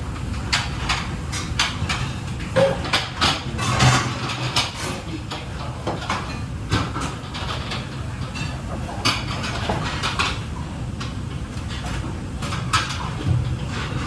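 Plates, pans and utensils clattering: scattered clinks and knocks, busiest in the first few seconds, over a steady low hum.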